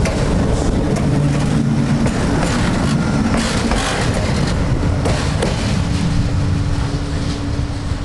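SNCF BB 26000 'Sybic' dual-voltage synchronous-motor electric locomotive rolling slowly past close by while shunting. A steady low rumble with an electrical hum and a few wheel clicks over the rail joints, fullest about halfway through as it passes.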